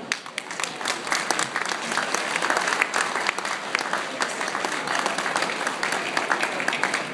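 Audience applauding, many hands clapping, swelling over the first second and then holding steady.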